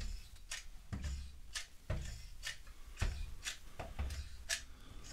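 Caulking gun being pumped: a sharp click about twice a second as the trigger is squeezed to push out silicone, some clicks with a soft low thump.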